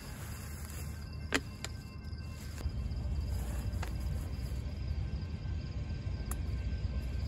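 Camping gear being handled and packed up: a low rumble of handling noise, louder from about two and a half seconds in, with a few sharp clicks, the sharpest about a second and a half in.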